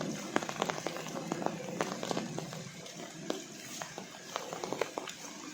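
Light rain falling, with irregular sharp ticks of single drops landing close by.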